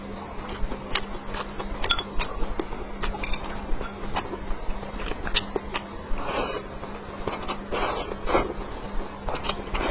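Close-miked eating sounds: wet chewing clicks and mouth smacks in an irregular run, with longer noisy chewing or slurping stretches about six and eight seconds in. A faint steady electrical hum runs underneath.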